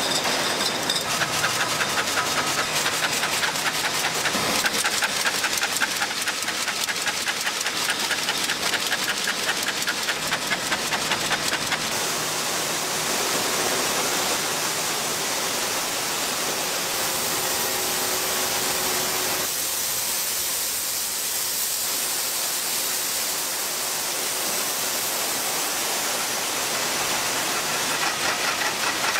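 Bottling-line machinery running: a steady hiss with rapid, even ticking for about the first twelve seconds, then a smoother hiss.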